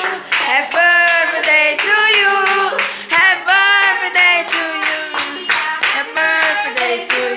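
A small group singing a birthday song together, with hands clapping along.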